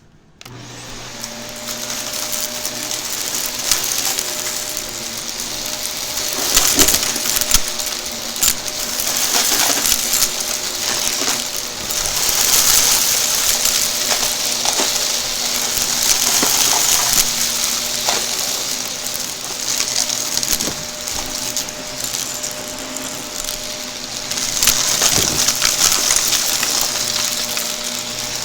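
Shark vacuum cleaner switched on about half a second in, its motor running steadily with a strong suction hiss. Many sharp clicks and crackles of debris are being sucked up, and the level swells and falls with the strokes.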